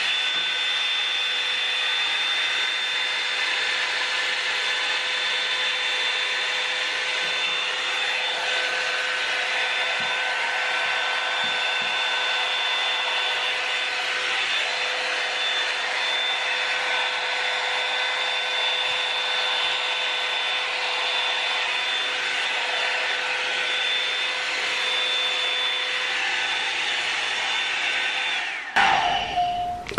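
Revlon oval hot-air dryer brush running: a steady rush of air with a steady whine from its fan motor. It stops abruptly near the end.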